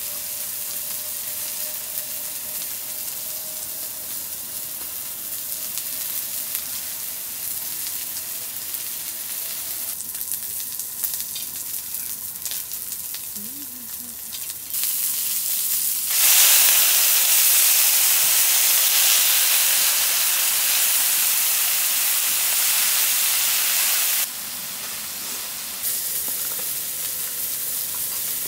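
Food frying and sizzling in a hot pan, a steady hiss that suddenly gets much louder for about eight seconds from around the middle.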